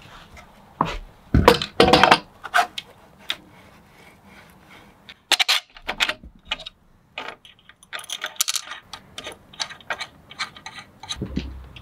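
Irregular clinks, clicks and knocks of small hard parts and tools being handled during assembly work, the loudest cluster about a second and a half in.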